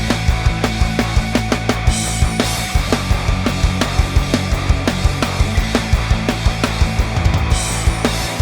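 Background rock music with a driving drum beat and distorted guitar.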